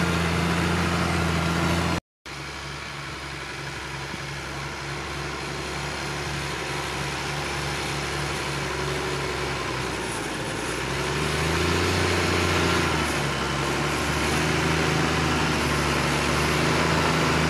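Deutz-Fahr tractor's 140 hp diesel engine working under load, pulling a five-furrow plough, with a steady engine note. The sound drops out for a moment about two seconds in, then comes back quieter and grows louder, the engine note rising briefly around twelve seconds before settling again.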